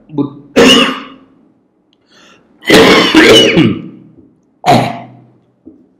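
A man clearing his throat and coughing in several separate bursts, acting out the choking struggle of someone who has difficulty swallowing food.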